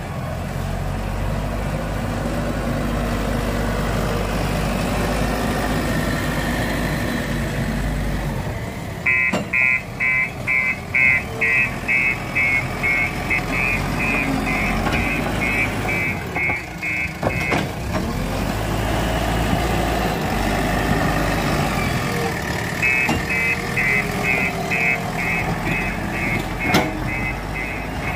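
JCB 3DX backhoe loader's diesel engine running under work, with its reversing alarm beeping about twice a second for some eight seconds from about nine seconds in, and again near the end as the machine backs up.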